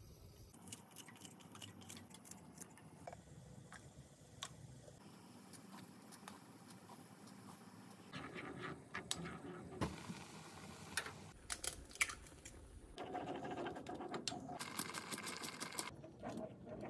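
Kitchen cooking sounds from a small saucepan on a gas stove: scattered light clicks and taps as ingredients go into the pan, then a spoon stirring and scraping, and the oatmeal porridge bubbling at the boil. One sharp knock stands out about twelve seconds in.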